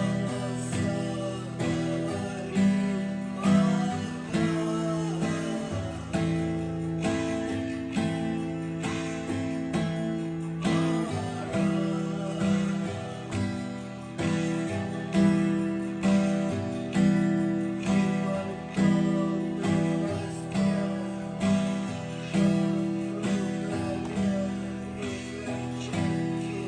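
Acoustic guitar strummed in a steady, evenly repeating pattern, changing between the chords G, A minor, B minor and E minor.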